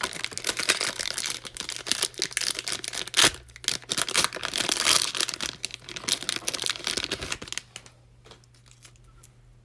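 Cellophane wrapper of a trading-card pack crinkling and tearing as it is opened, a dense crackle that stops about three-quarters of the way through.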